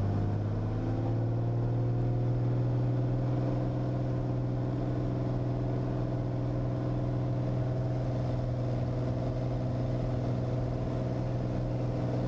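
Cirrus SR22T's turbocharged six-cylinder engine and propeller rising to full takeoff power in the first second or so, then running steadily at full power through the takeoff roll.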